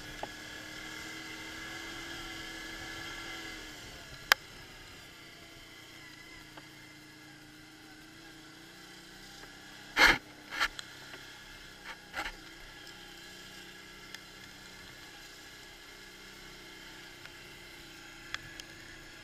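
Quad bike engine running steadily on a rutted dirt track, easing off about three and a half seconds in. A sharp click comes a second later, and a loud knock about ten seconds in is followed by two smaller ones as the machine jolts over the bumps.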